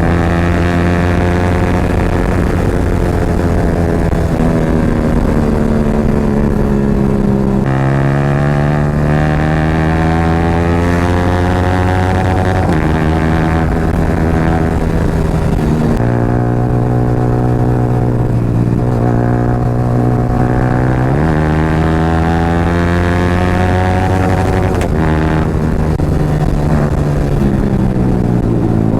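Yamaha R15's single-cylinder engine running loud through an Akrapovic slip-on exhaust while riding, the exhaust note climbing and dropping in steps several times as the rider works the throttle and shifts gears.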